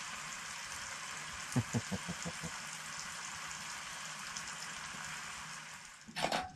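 Bacon frying in a skillet on a portable gas stove, a steady sizzling hiss. A few soft taps a little under two seconds in, and a brief louder noise near the end.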